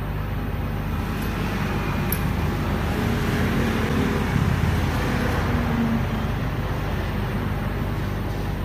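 Steady low mechanical hum and rumble with a background haze of noise, and a couple of faint clicks about one and two seconds in.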